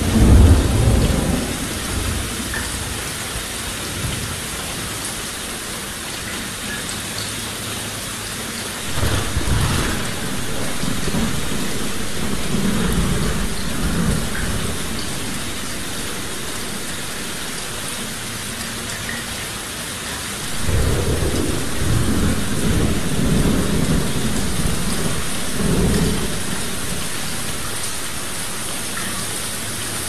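Steady heavy rain with rolls of thunder: one at the very start, another about nine seconds in, and a longer rumble about two-thirds of the way through.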